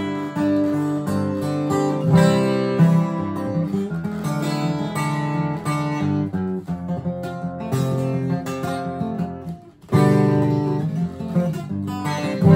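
1999 Gibson Hummingbird acoustic guitar played fingerstyle, a run of picked notes ringing into one another. The playing briefly drops away just before ten seconds in, then resumes louder.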